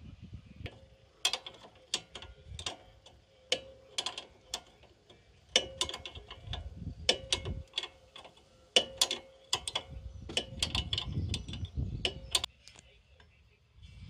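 A 14 mm ring spanner and a 5 mm Allen key are working the rusty top nut of a Mazda 3's front drop link back and forth. The sound is irregular sharp metallic clicks and clinks of tool on nut, some with a brief ringing tone, and they stop shortly before the end.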